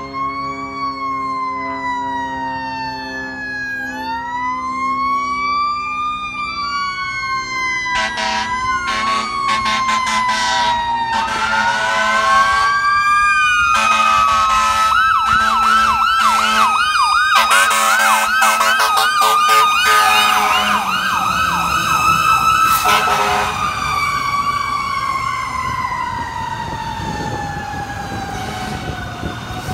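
Fire engine responding with its Federal Q2B mechanical siren winding up to a sustained peak, then slowly winding down near the end. An electronic siren wails and yelps alongside it. Repeated air horn blasts come in the loud middle stretch as the truck passes.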